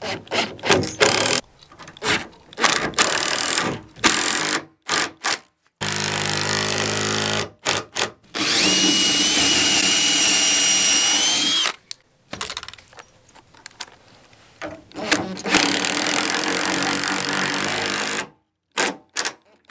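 Makita cordless impact driver driving lag bolts through steel angle brackets into timber. It runs in a string of short bursts, then in three longer runs of about one and a half, three and two and a half seconds, with gaps between them.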